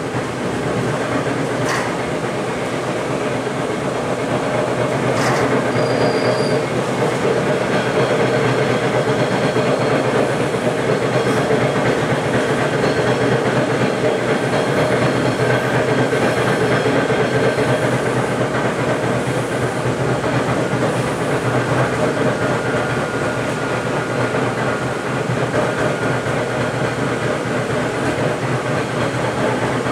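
Inside a TTC T-1 subway car running eastbound: a steady rumble of the wheels on the rails, with a few sharp clicks in the first several seconds.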